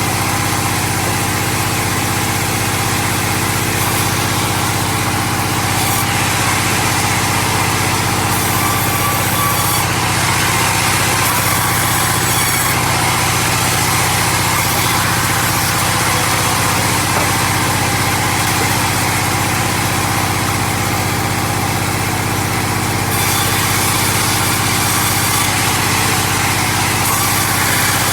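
Engine-driven sawmill running steadily under a constant low engine drone. The higher-pitched noise above it changes character every few seconds.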